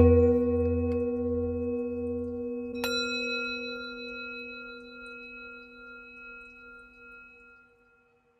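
Singing bowls struck during a sound massage: a large bowl struck once, ringing with a deep tone and a slow pulsing beat, then a second, brighter strike about three seconds in. Both ring on and fade away near the end.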